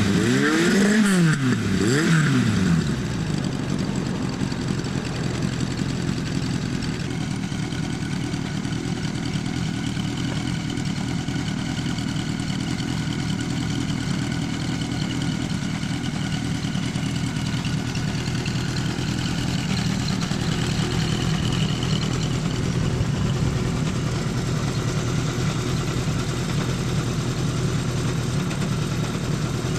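Honda CB400F Four's air-cooled inline-four engine through a Yoshimura four-into-one collector exhaust: blipped twice, each rev rising and falling quickly in the first three seconds, then settling to a steady idle.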